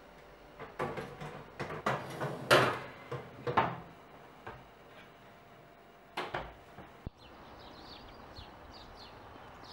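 Knocks and clanks of a metal baking tray sliding onto the oven rack and the oven door being handled, the loudest about two and a half seconds in. About seven seconds in this cuts to birds chirping outdoors.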